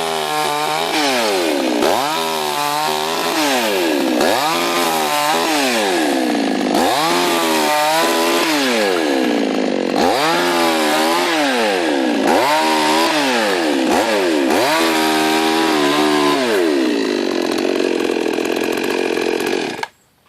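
Petrol chainsaw mounted on a pivoting bench, revved up again and again as it cuts through small branches, its pitch rising and dropping back about every two seconds. The engine stops abruptly near the end.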